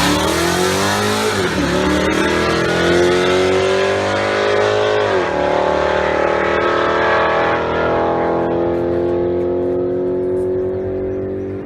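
Ford 5.0 Coyote V8 in a Mustang with a modified, muffler-deleted exhaust accelerating hard. Engine pitch climbs, drops at two upshifts, about one second in and again about five seconds in, then rises slowly through a long pull in the higher gear.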